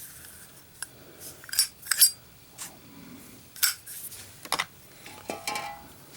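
Sharp metal clicks and clinks from a high-polish chrome Zippo pipe lighter being handled, several separate clicks with a brief metallic ring spread through the few seconds.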